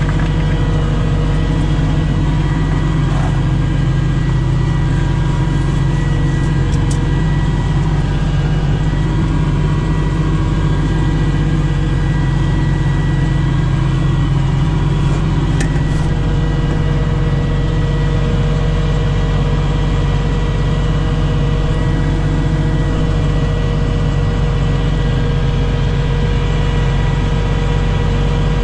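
Tow truck's engine idling steadily at close range: a constant low drone with steady higher tones over it.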